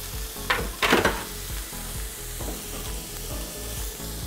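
Marinated chicken tenders sizzling in a grill pan while a spatula turns them, with two short scrapes of the spatula against the pan about half a second and a second in.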